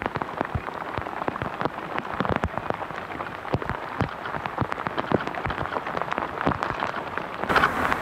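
Rain falling, with drops tapping irregularly close to the microphone, several a second, over a steady hiss. A louder steady noise comes in near the end.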